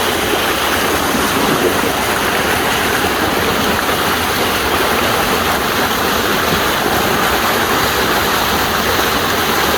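Steady loud rush of flowing, churning water.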